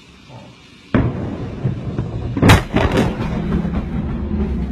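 Filling-station explosion: a sudden loud boom about a second in, a sharper blast, the loudest moment, midway, a few more bangs just after, then a steady heavy rumble of the fire.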